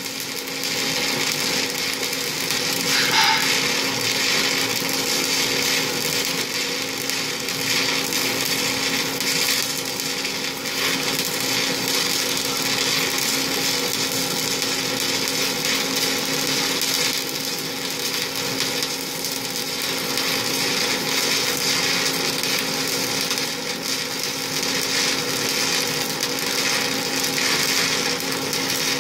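Stick-welding arc of a 3/32-inch E7018 electrode burning in a continuous run, sizzling steadily, with a steady low hum underneath.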